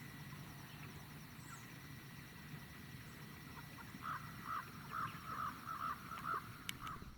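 Geese honking, a run of about seven calls in quick succession in the second half over a quiet background. It is the kind of calling the hunter takes as the flock getting ready to fly.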